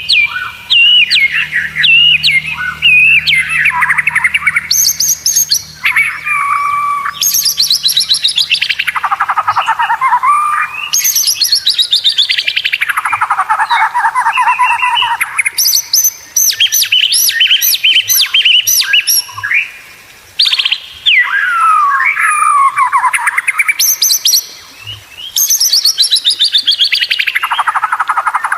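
White-rumped shama (murai batu) singing a long, varied song: fast trills that sweep down in pitch, bursts of quick repeated rattling notes and whistled phrases, broken only by short pauses.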